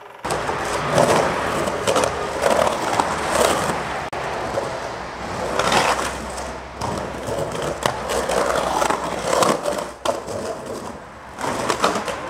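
Skateboard wheels rolling hard across a concrete bowl, with several sharp knocks of the board along the way. The sound starts suddenly just after the start.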